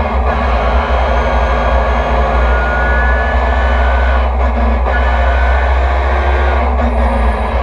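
Nissan 350Z race car's V6 engine running hard under racing load, heard from inside the stripped cockpit: a loud, steady drone with a heavy low rumble and a few brief dips.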